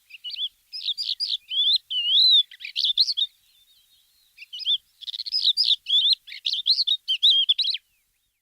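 A small songbird singing two fast phrases of varied chirps and whistles, the second starting about four and a half seconds in.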